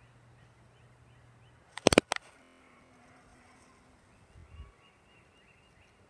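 A bumblebee buzzing with a low steady hum that stops, followed about two seconds in by a quick cluster of sharp knocks, the loudest sound, and later a dull low thump. Faint bird chirps run underneath.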